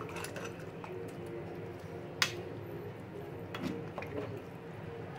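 Steel ladle stirring rice into a wet vegetable gravy in a large aluminium pot, with a sharp clink of the ladle against the pot about two seconds in and a few lighter knocks a little later, over a steady background hum.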